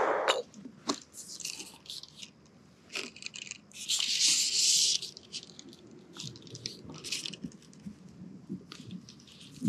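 Handling noise from a fly rod and fly line: scattered rustles and small clicks, with a louder hiss of about a second roughly four seconds in.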